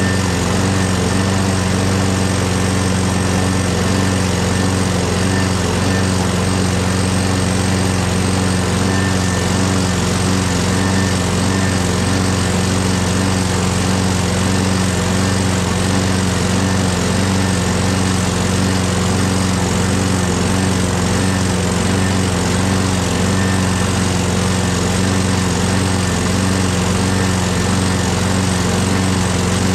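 Craftsman mower's 6.5 hp Briggs & Stratton Quantum single-cylinder engine running steadily at one constant speed, with no revving. It now runs after a loose carburetor plate that was letting in an air leak and a misrouted throttle cable were fixed.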